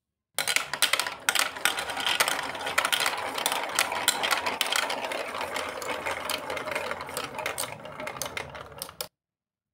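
A handful of plastic balls clattering and rolling down the plastic tracks and slides of a Duplo-style building-block marble run: a dense run of clicks and rattles that starts abruptly, thins out gradually, then cuts off suddenly near the end.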